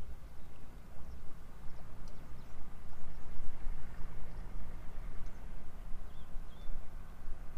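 Wind buffeting the microphone: a low rumble that rises and falls in gusts.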